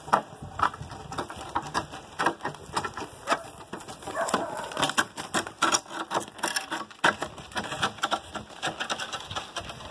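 Irregular clatter of pack mules' hooves on a gravel road, mixed with wooden planks lashed to their pack saddles knocking and scraping as the ends drag along the ground.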